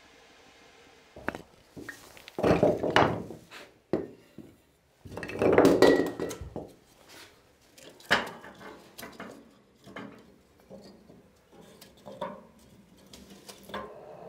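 Split wooden kindling knocking and clattering against the metal firebox as a small wood-burning stove is loaded by hand. There are two louder clattering bursts a few seconds in, then a run of sharper wooden knocks and clicks.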